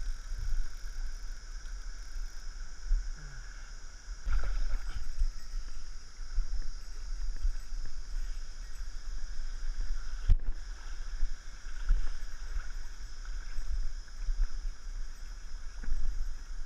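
Shallow stream running steadily over stones, with water sloshing around hands held in the current and a low rumble of the body-worn camera being jostled. A sharp knock about ten seconds in.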